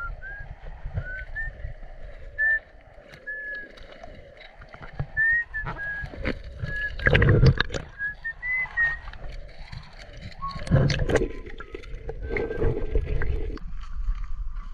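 Water sloshing and splashing around a waterproof camera as it is handled underwater and brought up through a river's surface, with two loud splashes about seven and eleven seconds in. A run of short high chirps repeats over it.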